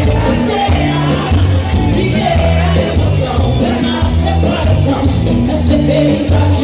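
Loud Brazilian carnival music with singing and a bass line of held low notes, over crowd noise and shouts.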